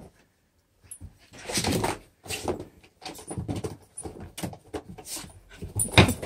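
Small dog rummaging in a plastic laundry basket after its toys: repeated rustling, scraping and knocking of the basket and toys. A sharp knock about six seconds in is the loudest sound.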